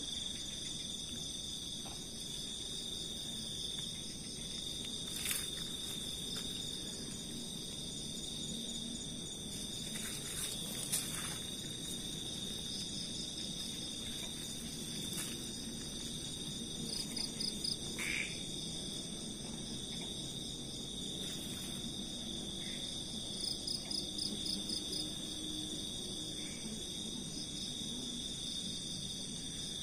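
Night insect chorus: a steady, high-pitched trilling of several insects together. A faster, pulsing trill swells over it twice, about halfway through and again later. A couple of sharp clicks stand out early on.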